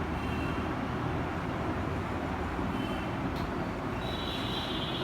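Steady background rumble like road traffic, with a steady high tone setting in about four seconds in.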